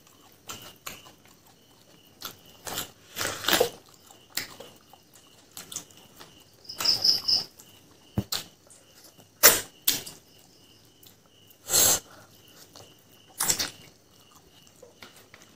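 Close-up sounds of a person eating fried pork leg by hand, gnawing the meat off the bone: chewing and mouth noises in irregular short bursts, with a few sharp clicks.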